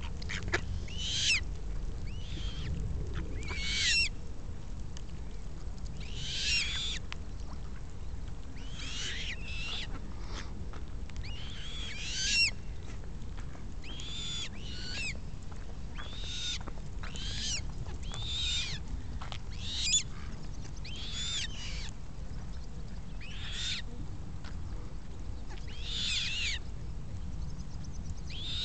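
Eurasian coots calling: a string of short, high-pitched calls, one every second or two, each falling slightly in pitch, over a steady low rumble.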